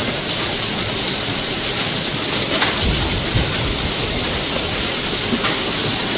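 Heavy downpour splashing steadily into standing floodwater, with a few sharper drop hits.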